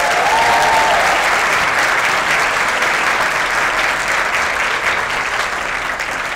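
Audience applauding: steady, dense clapping that begins to die down near the end.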